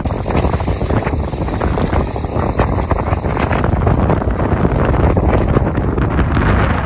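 Wind buffeting the microphone: a loud, gusting rumble with no steady engine tone.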